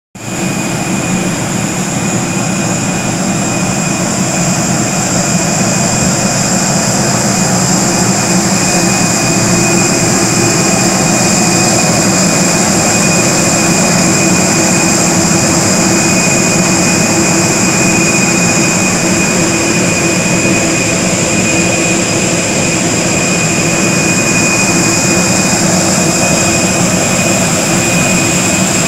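Steady jet-turbine whine over a constant rumble, holding one pitch: aircraft turbine noise on an airport ramp.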